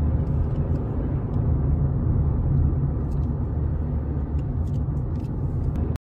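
Car driving, heard from inside the cabin: a steady low rumble of engine and tyre noise, with a few faint light ticks.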